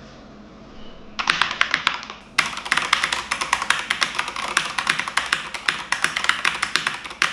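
Typing on a Corsair K70 RGB MK.2 RapidFire mechanical keyboard with linear Cherry MX Speed switches: a fast, continuous run of key clicks. It starts about a second in and gets denser about two and a half seconds in.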